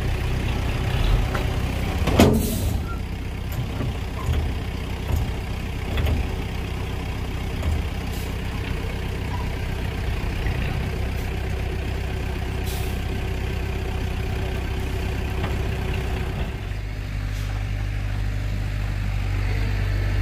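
Heavy diesel engine of a dump truck running steadily, with scattered knocks and one loud sharp burst about two seconds in. The engine's note shifts lower near the end.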